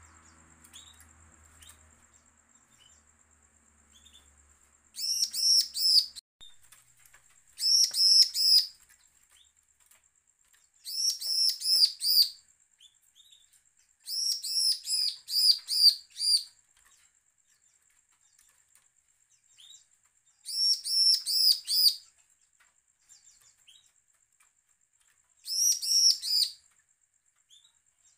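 Bar-winged prinia (ciblek) singing in six short bursts of rapid, very high, repeated notes, each burst about one to two seconds long and several seconds apart, with a few faint single chips between. It is the threatening, challenging ciblek song used as a lure to set other ciblek singing.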